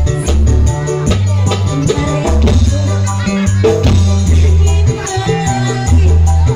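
Live band music played loud through a sound system: a keyboard over a heavy, steady bass line, with fast, even percussion strokes and some vocals over it.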